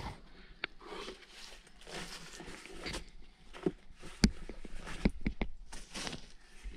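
Scuffs and taps of a climber's hands and climbing shoes on the rock as she moves up a steep boulder face, with a sharper knock about four seconds in and a few quick taps about a second later.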